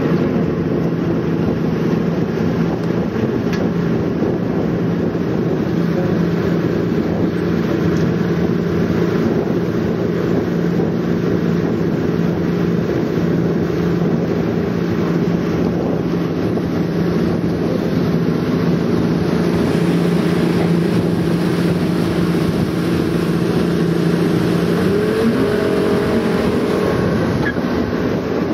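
Motorboat engine running steadily as the boat travels at speed, a constant droning hum; about 25 s in the engine note shifts and rises.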